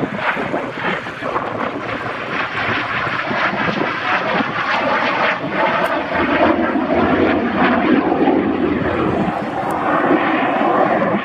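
A fixed-wing aircraft flying past with its engine noise rumbling steadily, growing louder about halfway through.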